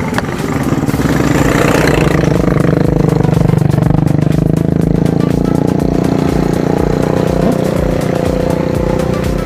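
Small motorcycle engines running close by, growing louder over the first few seconds and then easing slightly, with background music underneath.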